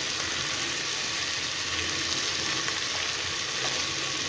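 Freshly added sliced onions sizzling steadily in hot oil in an aluminium pressure cooker.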